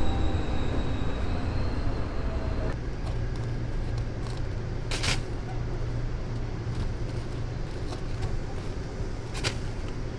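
Steady low background rumble with a faint high tone in the first few seconds, and two short sharp clicks, one about halfway through and one near the end.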